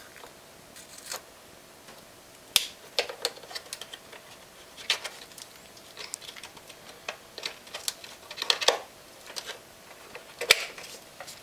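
Scattered sharp plastic clicks and taps as a brake wear sensor's electrical connector is pushed into its plastic connector box in the wheel well and the box is handled shut, a few clicks louder than the rest.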